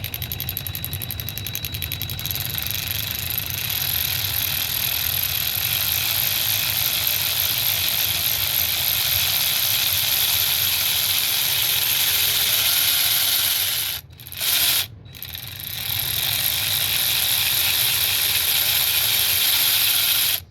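Byczone 3/8" cordless ratchet wrench motor running under the variable-speed trigger, picking up speed and getting louder over the first few seconds, then running steadily. It cuts out briefly twice about fourteen and fifteen seconds in, runs again, and stops at the end.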